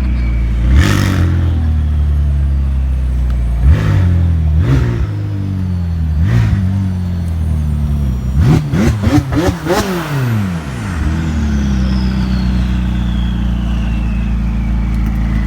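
Supercar engine idling with sharp throttle blips every second or two, then a quick series of revs rising and falling in pitch about halfway through, before it settles back to a steady idle.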